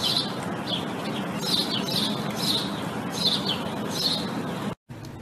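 Repeated short, high chirps, about two a second, each falling in pitch, over a steady low hum. The sound cuts out abruptly near the end.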